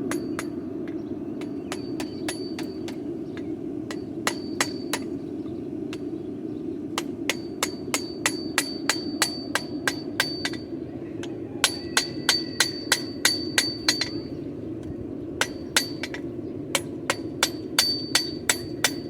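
Blacksmith's hand hammer striking the horseshoe steel on the anvil in runs of quick ringing blows, about three to four a second, with short pauses between runs: chamfering the corner of the hoof-pick handle at below forging heat. A steady low rushing noise runs underneath.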